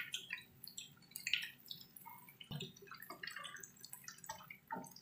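Tofu deep-frying in hot oil in a pan, a scatter of small pops and crackles. One knock about two and a half seconds in.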